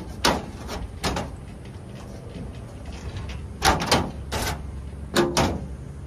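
Cut-out square of a metal garage door panel being worked loose and pulled from its opening: a series of sharp knocks and rattles, two early on, a quick cluster near the middle and more toward the end, over a low steady rumble.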